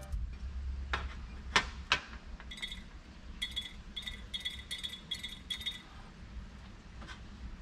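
Light clicks and clinks of a motorcycle carburetor and its removed float bowl being handled over a metal tray, three sharp clicks in the first two seconds. Then a run of about seven short, evenly spaced ringing clinks.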